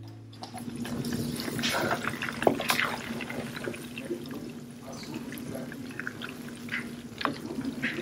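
Butter simmering in a pan as it is cooked down into ghee: a steady bubbling and crackling that starts about half a second in, stirred through with a wooden spatula.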